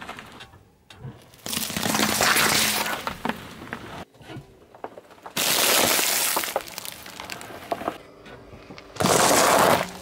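A car tyre rolling over small objects on asphalt and crushing them: three separate loud stretches of crunching and crackling, each a second or two long, with quieter gaps between.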